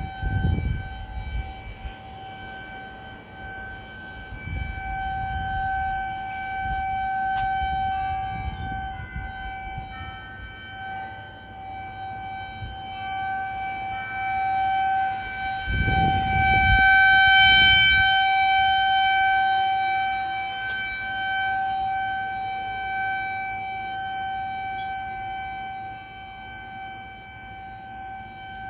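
Outdoor tornado warning siren sounding a test, holding one steady pitch while it swells and fades in loudness. A few low rumbles sit underneath, near the start and again around the loudest swell.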